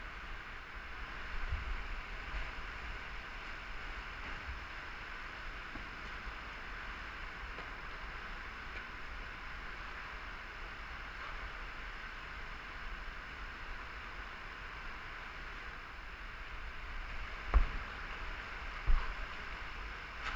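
River current rushing steadily around a kayak on a slalom course, with a few low knocks, two loud ones near the end, from the boat or paddle.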